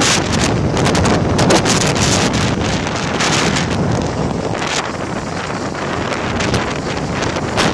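Wind buffeting the phone's microphone: a loud, rough rumble that rises and falls in irregular gusts.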